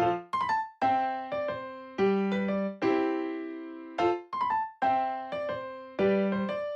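Background music: a light, bouncy piano or keyboard tune in short repeating phrases of plucked-sounding notes.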